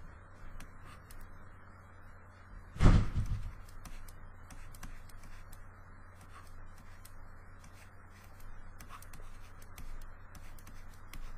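Faint, scattered clicks and taps from drawing on a computer, over a steady low electrical hum. About three seconds in there is one loud thump.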